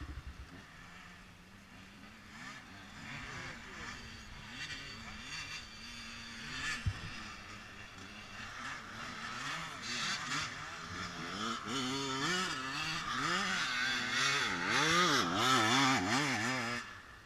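Honda 400EX quad engines revving, their pitch rising and falling. They are fainter at first and grow louder from about halfway, then fall away sharply near the end. A single sharp knock comes about seven seconds in.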